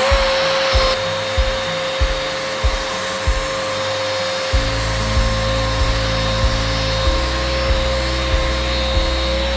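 Festool Rotex sander running steadily in Rotex (aggressive gear-driven) mode, a constant motor whine over an even sanding hiss, winding down at the very end. Background music with a steady beat plays underneath.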